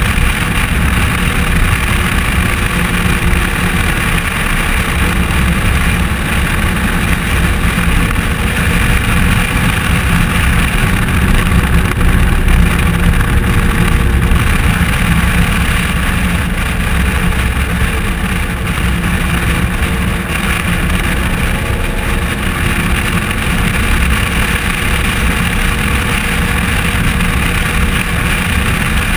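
Polaris RZR side-by-side running at steady highway speed: a constant engine drone mixed with wind and road noise in the open cab.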